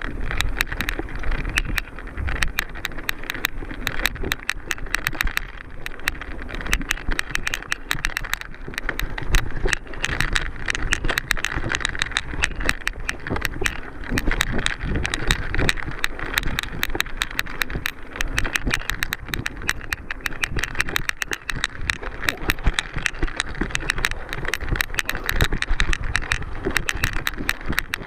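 Mountain bike rattling and clattering over rough ground, with a steady rush of tyre and wind noise.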